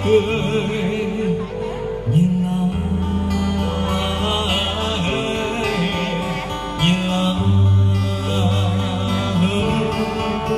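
Live band playing a slow song: acoustic guitar strummed over sustained keyboard notes, with a male voice singing the melody.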